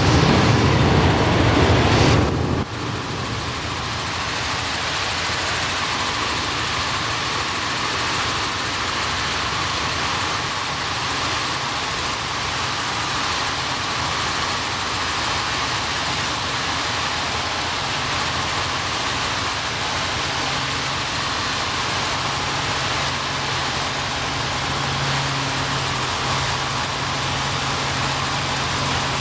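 Helicopter cabin noise in flight: the steady drone of the rotor and engine with air rushing past. It is louder for the first two and a half seconds, then drops suddenly and holds steady.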